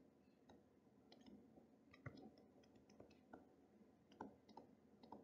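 Near silence with faint, irregular clicks and taps of a pen stroking a writing surface as words are handwritten.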